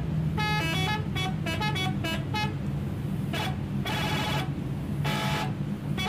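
Car horn sound effect dubbed over the toy car: a run of short honks, then two longer blasts about three and a half and five seconds in, over a steady low hum.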